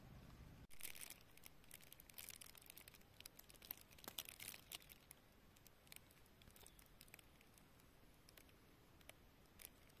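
Faint rustling and crackling of dry leaf litter and twigs being handled at the ground. It is busiest for the first few seconds after it starts, then thins to scattered light ticks.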